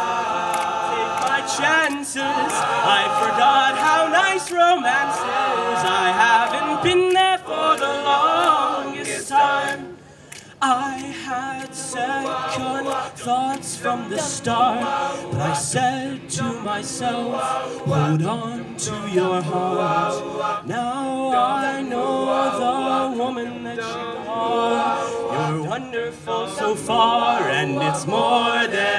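A cappella vocal group singing in harmony with voices only, a soloist over the backing voices, briefly dropping away about ten seconds in before carrying on.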